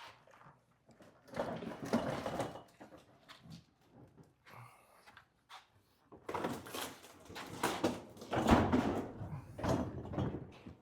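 A Qingo ACE779 vending machine being rolled on its wheels over a makeshift wooden ramp covered with thin metal sheets, making scraping and rumbling noises. There is a short stretch of noise early on and a longer, louder one from about six seconds in.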